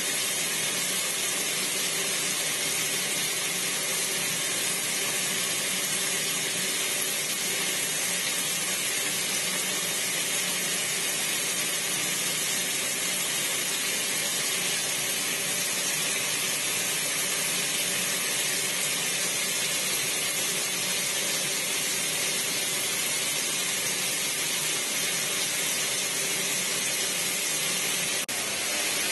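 Top-loading washing machine filling: water from the fill inlet pours into the empty drum with a steady splashing hiss, broken briefly near the end.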